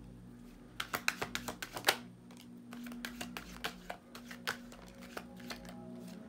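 Tarot deck being shuffled by hand: a quick run of sharp card snaps about a second in, then scattered softer flicks as a card is drawn from the deck. Faint background music with steady low tones underneath.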